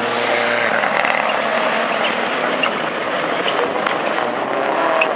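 Rallycross Supercars racing past at high revs: a steady, dense engine and tyre noise with scattered sharp cracks.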